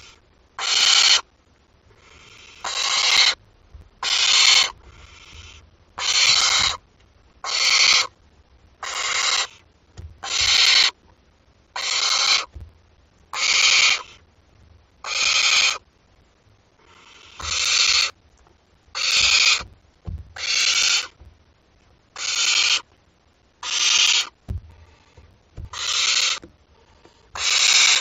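Barn owl chicks giving their rasping, hissing begging calls (the nestlings' 'snoring'), one hiss about every second and a half, repeated steadily.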